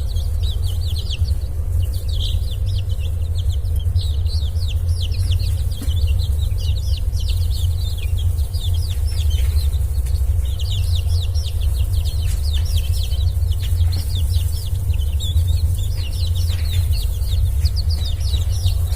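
Chicks cheeping: many short, high peeps that fall in pitch, several a second, with a few gaps, over a steady low rumble.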